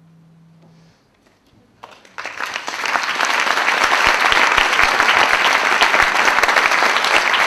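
Theatre audience breaking into applause about two seconds in, quickly building to loud, steady clapping at the end of a dance performance.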